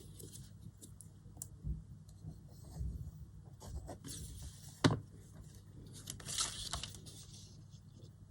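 Quiet rustling of paper and card being handled while a folded centre piece is glued in, with one sharp tap about five seconds in.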